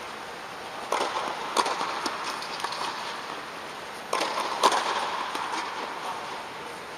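Tennis balls being hit with rackets and bouncing on the court: sharp pops with a reverberant tail in the inflatable air dome. There is a cluster of hits about a second in and another about four seconds in.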